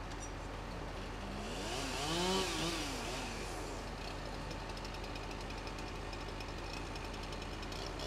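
Small top-handle chainsaw idling with a rapid, even putter, revved up and back down once about two seconds in.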